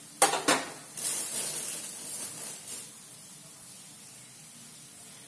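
Two sharp clicks, then a hiss that lasts about two seconds and settles to a faint steady hiss: a gas stove burner being lit under an empty steel kadai.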